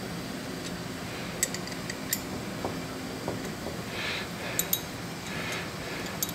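A few scattered light metallic clicks and soft scraping from a hand tool turning screws in the hub of a Browning taper-fit pulley, the screws jacking the tapered hub loose so it works as a puller to free the pulley from the motor shaft.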